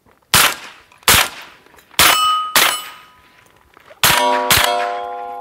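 Six .22 LR shots from an AR-15 fitted with a CMMG Bravo .22 conversion kit, fired about a second apart, each hit ringing a hanging steel target. The last two hits set the steel ringing, and it goes on to the end.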